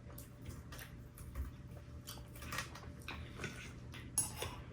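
Faint clicks and small smacks of eating and chewing by hand, scattered irregularly, with a sharper click about four seconds in.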